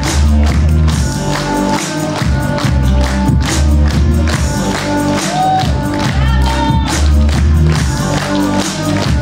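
Music with a steady beat over a deep, sustained bass line.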